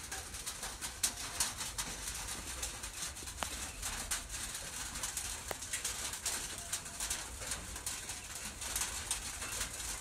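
Steady rain falling, a fine even hiss full of tiny drop ticks, with birds calling now and then over it.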